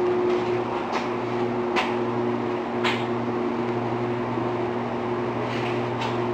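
A steady mechanical hum made of several held tones, with three sharp clicks in the first three seconds.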